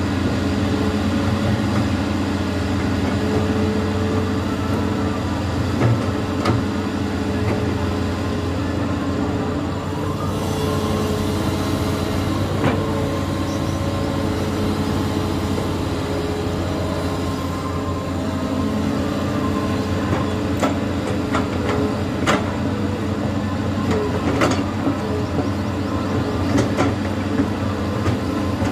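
Hitachi Zaxis 210-5G hydraulic excavator's diesel engine running steadily under load as the machine digs in mud, with a few sharp clanks scattered through the second half.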